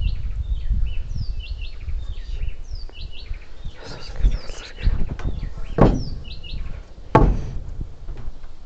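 Birds chirping in short, repeated falling calls over a low rumble, with two heavy knocks on wood, a little before six seconds in and again about a second later.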